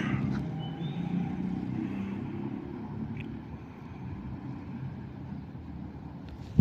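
Steady low rumble of a motor vehicle, easing slightly in loudness over the first few seconds, with a small click about three seconds in.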